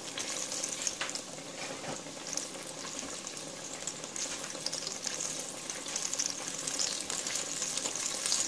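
Pear fried pies cooking in shallow vegetable oil in a stainless steel pot: a steady sizzle with scattered small crackles.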